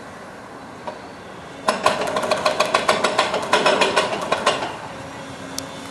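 Excavators working a demolition rubble heap: a steady engine hum, and about two seconds in nearly three seconds of rapid metallic clanking, around ten hits a second with a ringing tone, before it fades back to the engine.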